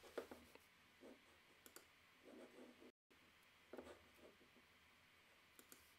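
Near silence: quiet room tone with a few faint computer mouse clicks, and the audio cuts out completely for a split second about halfway through.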